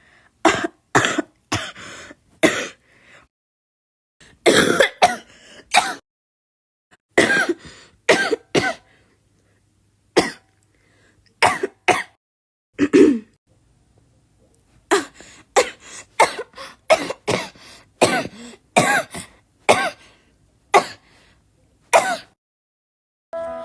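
A girl coughing over and over in short runs of two to five coughs, with brief pauses between runs. Some coughs carry her voice.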